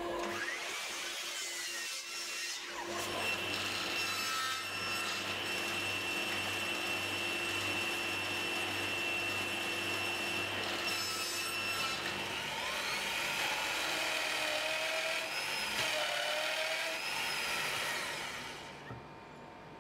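Woodworking power tools cutting plywood in turn: a mitre saw, then a table saw running steadily with a constant whine through a cut on a crosscut sled, then a drill press boring a large hole with a 35 mm bit. The sound changes about twelve seconds in and falls away near the end.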